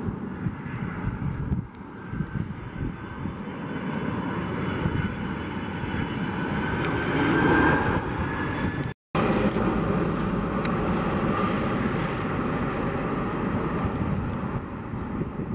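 Boeing 767 freighter's twin jet engines on final approach with the gear down: a steady low rumble with a high whine on top, growing louder to a peak about seven to eight seconds in. The sound drops out for an instant about nine seconds in, then the jet noise carries on.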